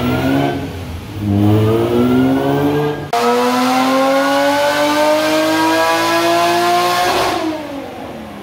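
Supercharged G35's V6 engine making a full-throttle pull on a chassis dyno: the revs climb, drop back at two gear changes about one and three seconds in, climb steadily in the top gear until near the end, then fall as the throttle is lifted.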